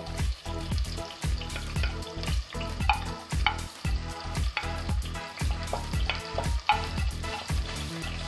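Chopped bitter gourd dropping into hot coconut oil in a pot and sizzling, with a wooden spatula scraping and knocking the pieces off a plate into the pan.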